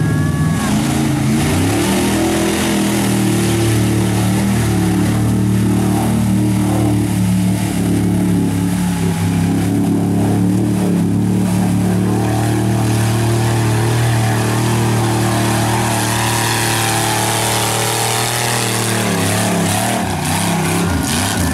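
Lifted Ford pickup's engine pulling hard through a mud pit: it revs up over the first couple of seconds, holds high revs steadily with mud spraying from the tyres, and drops off a few seconds before the end.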